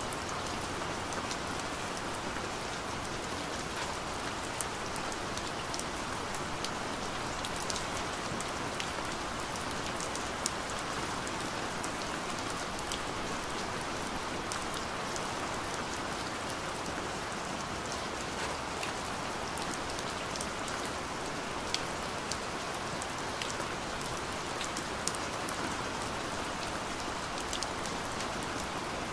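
Steady rain falling on wet tarmac, an even hiss with many small, sharp drop ticks scattered through it.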